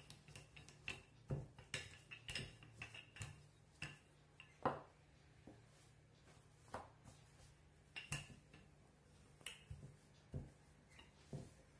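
Wooden rolling pin rolling out dough on a tabletop: faint, irregular knocks and clicks as the pin and hands work over the dough and table, over a low steady hum.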